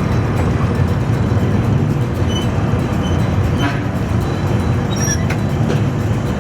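Steady low rumble of a road vehicle driving along.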